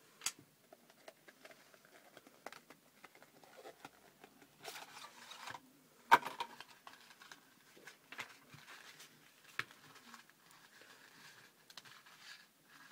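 Plastic earbud packaging being handled: scattered light taps, clicks and rustles, with a sharp click about six seconds in and a short stretch of rustling just before it.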